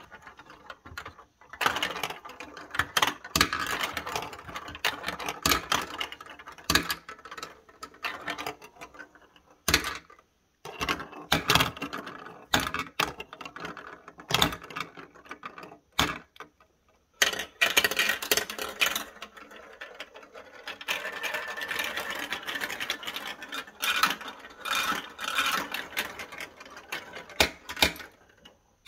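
Several white marbles rolling and clattering down a plastic building-block marble run. A running rattle is broken by clicks and knocks as they drop onto and bump along the plastic track, with a few short pauses between runs.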